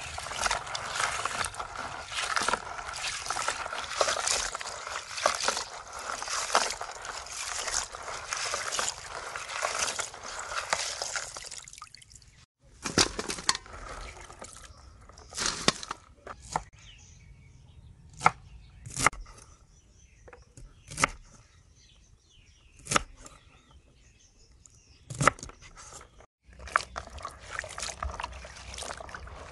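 Running water and splashing, with many small clicks mixed in, for about twelve seconds. It stops abruptly and gives way to a quieter stretch of separate sharp clicks and knocks. Near the end the water sound returns.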